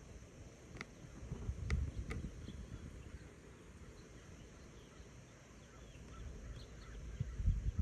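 Backyard outdoor ambience: a low rumble on the microphone, a few sharp clicks in the first couple of seconds, faint small bird chirps, and a thump near the end.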